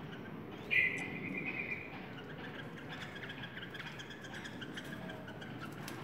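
Yellow-vented bulbul (trucukan) calling: a loud trill just under a second in, then a rapid run of chattering notes lasting about four seconds.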